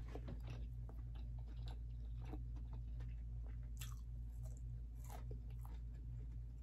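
Close-up chewing and biting of crunchy deep-fried breaded seafood: scattered crisp crunches, a couple louder ones past the middle, over a steady low hum.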